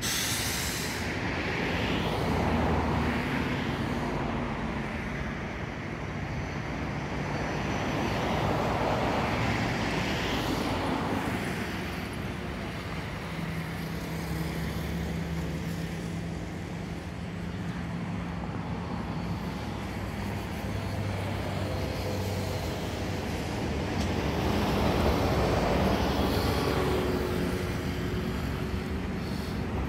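Road traffic: vehicles passing one after another, each swelling and fading over a steady low rumble.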